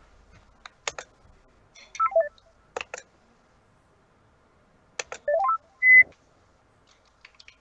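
Voice-call app notification tones: a short falling run of beeps about two seconds in, then a rising run about five seconds in ending in a short steady beep, with a few sharp clicks in between. These are the tones of a caller dropping off the call and reconnecting.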